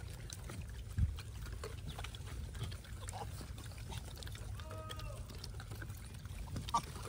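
Quiet outdoor background with a low steady rumble, faint rustling and scattered small clicks as gray langurs take peanuts from a man's hand. There is a soft thump about a second in and a faint far-off call around five seconds in.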